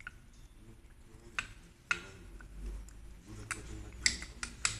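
Sharp clicks and taps of hard objects at uneven spacing, about seven of them and closer together near the end, over a faint low rumble; in this video about a broken connecting-rod bushing, they fit metal engine parts being handled.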